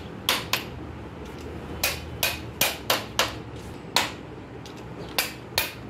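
Sharp metal-on-metal knocks and clicks, about ten at irregular intervals, from parts and tools being handled and fitted on a Hino truck engine's cylinder head during camshaft assembly.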